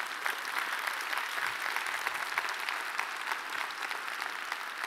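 Conference audience applauding steadily.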